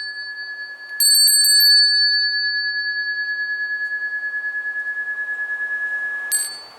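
Handmade metal bell ringing, struck several times about a second in, then ringing on in one long tone that pulses slowly as it fades, until it is stopped with a small clink near the end. It is carried as a noise-maker to warn off animals in the forest.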